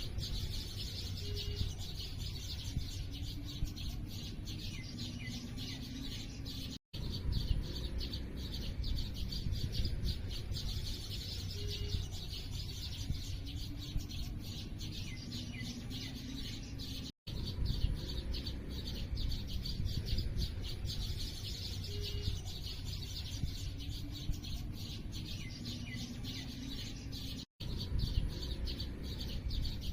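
Many small birds chirping densely over a steady low background rumble, with a few lower gliding calls. Three times, about every ten seconds, the sound drops out for an instant and the same stretch of birdsong repeats as the recording loops.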